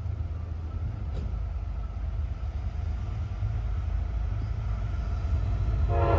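Low diesel rumble of an approaching GE AC44CW locomotive leading a freight train, growing steadily louder; its air horn starts to sound near the end.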